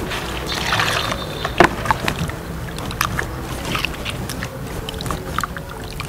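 Water splashing and sloshing as hands swish lettuce, chillies and a carrot around a stainless steel bowl of washing water, in irregular strokes.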